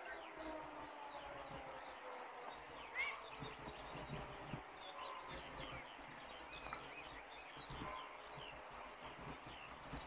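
A distant civil-defence siren, sounding for a test alarm, winds down: its pitch falls slowly and fades away over the first few seconds. Birds chirp throughout.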